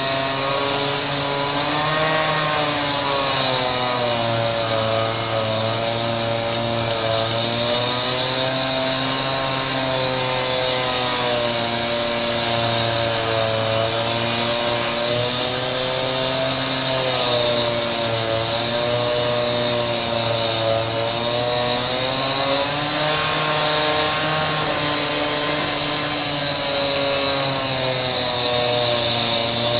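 Concrete saw cutting a decorative stone floor: a loud, continuous motor-and-blade whine over a gritty hiss, its pitch wavering slowly up and down.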